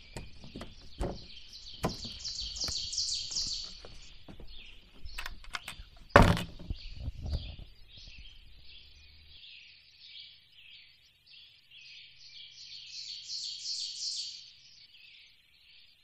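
Woodland songbirds singing over a steady high chorus, with a louder rising song phrase twice. In the first half there are scattered light knocks and one loud thump about six seconds in.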